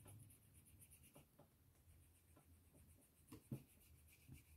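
Faint strokes of a water brush rubbing over wax pastel, blending the colours, with a few soft ticks; the clearest tick comes about three and a half seconds in.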